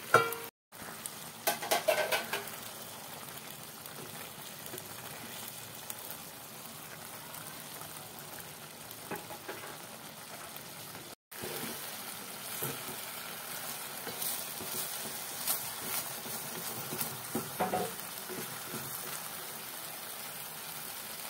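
Pot of Maggi noodles with pork sizzling steadily as it cooks, with a wooden spatula stirring and scraping against the pot now and then. The sound drops out briefly twice where the footage is cut.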